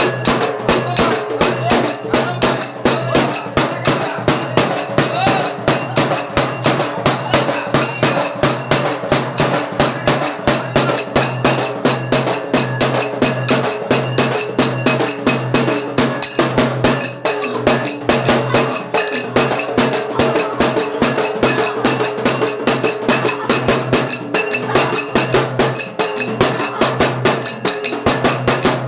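Steel plates and metal vessels beaten in a fast, steady rhythm, the sharp metallic strikes ringing, with voices mixed in.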